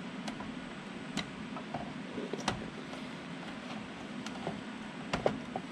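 Several sharp plastic clicks and knocks as a new developing unit is set and seated into its slot in a Konica Minolta C1070 press's drawer, over a steady low background hum.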